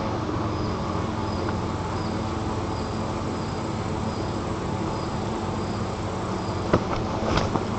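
Steady outdoor background noise with a faint high chirp repeating about every three quarters of a second. Near the end come a few sharp knocks and rustles, from white-tailed eaglets knocking on the sticks of their nest.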